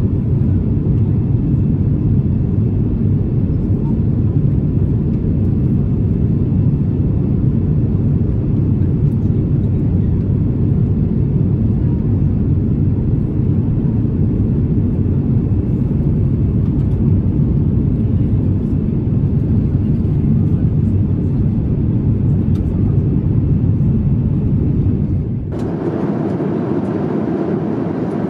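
Cabin noise of an Airbus A350-1000 airliner in flight, heard from a window seat over the wing: a steady, even low rumble of its Rolls-Royce Trent XWB engines and the airflow. Near the end it changes abruptly to a thinner cabin hum with less bass.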